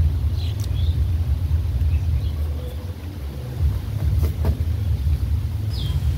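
A loud low rumble throughout, with a few faint short high chirps and two sharp clicks about four seconds in.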